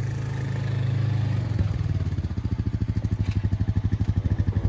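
ATV (four-wheeler quad) engine running as it is driven up a dirt road. The steady hum turns into a quick, even pulsing about a second and a half in.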